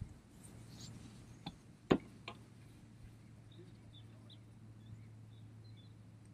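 A few sharp clicks and knocks from fishing tackle being handled, the loudest about two seconds in, followed by faint bird chirps over a low steady hum.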